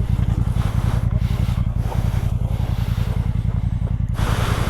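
Motorcycle engine idling steadily with an even low throb. A short rush of noise comes in near the end.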